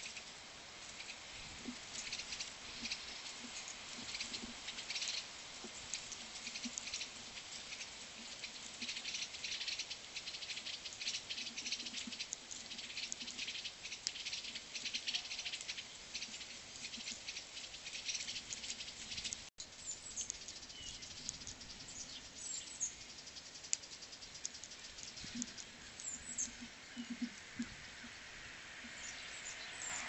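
A dense, light patter of tiny taps and crackles that thins out after a momentary dropout about two-thirds through, with a few short, high bird chirps in the last third.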